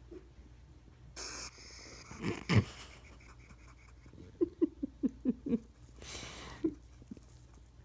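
An agitated hedgehog huffing and popping at being handled: a hissing huff about a second in, a quick run of about seven short low pops around the middle, and another huff near the end.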